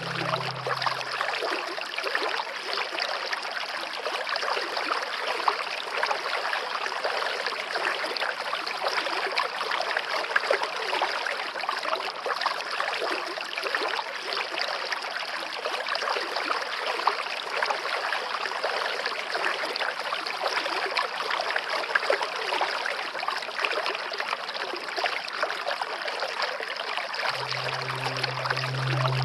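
Steady rushing and trickling of a flowing forest stream. Soft music with low held notes drops out about a second in and returns near the end.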